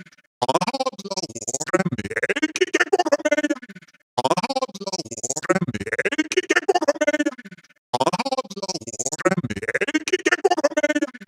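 Synthesized robotic voices, electronically chopped into a rapid stutter. They come as three near-identical phrases of about four seconds each, with a brief silent break between them.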